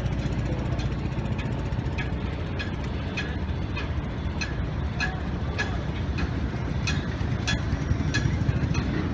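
A motor engine running steadily with a low rumble, with sharp ticks or clicks at irregular intervals about once or twice a second.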